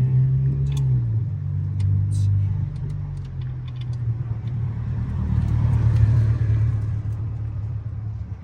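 A steady low engine rumble from a running motor vehicle, swelling a little past the middle, with a few light metallic clicks.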